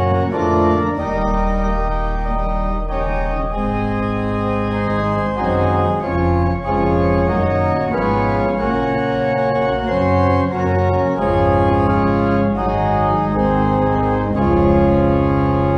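Organ playing slow sustained chords over a low bass line, the chords changing every second or so.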